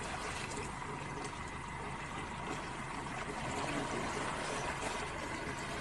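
Steady background of river water with the faint, even hum of a boat's motor.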